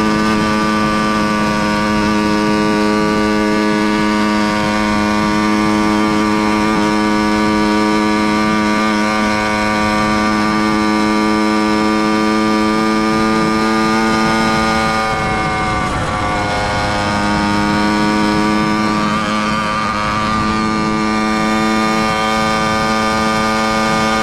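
Motorized bicycle's small engine running at a steady cruising speed with an even, buzzing pitch. About fifteen seconds in the throttle eases off briefly and the note blurs, then it comes back to the same steady pitch.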